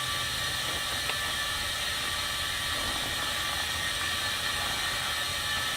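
A small machine running steadily, an even whir with a constant whine of several tones and no change in level.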